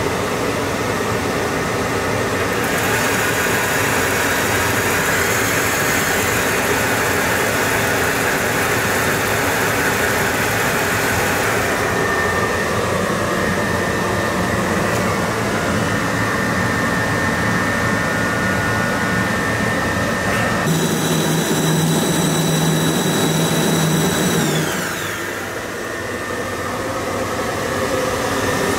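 Submersible's electric thrusters and onboard machinery whirring steadily during the ascent. About two-thirds through, a set of high whines comes in, holds, then glides down and fades.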